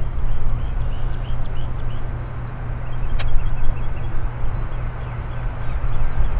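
Boeing 767 freighter's jet engines running with a low rumble as it lands; the rumble eases in the middle and swells again near the end. Faint bird chirps sound over it.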